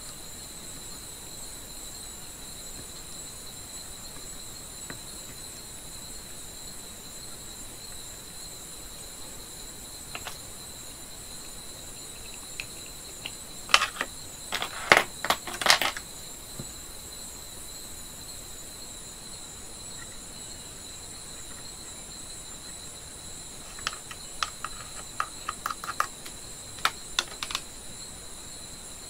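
A flurry of sharp clicks and clatters about halfway through as a small metal tin of soldering paste is opened and handled, then a run of lighter clicks from tools near the end, over a steady high-pitched whine.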